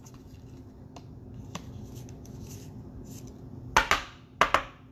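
Trading cards being handled and set down on a stack on a table mat, with soft rustling and then two pairs of sharp clicks near the end.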